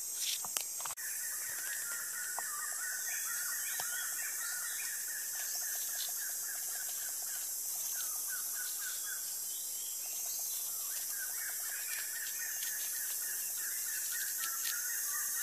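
Outdoor forest ambience: a bird gives long runs of rapid, repeated chirps, pausing briefly about two-thirds of the way through, over a steady high hiss.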